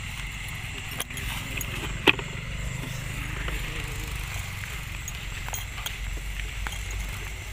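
Handling noise from a handheld camera being moved about, a low rumble with a steady high hiss behind it. A light click comes about a second in and a sharp knock, the loudest sound, about two seconds in.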